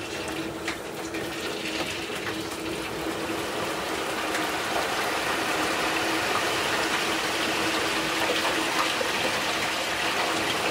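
Hot frying oil at 350° bubbling and sizzling as a whole seasoned turkey is lowered slowly into the fryer pot, growing louder from about four seconds in as more of the bird goes under. A steady low hum runs beneath it.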